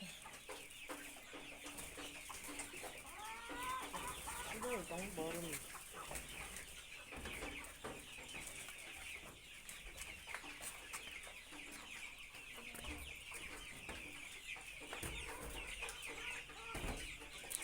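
A flock of chickens on a poultry farm, many birds peeping and chirping without pause, with a few louder, pitch-sweeping calls over the chorus about four seconds in.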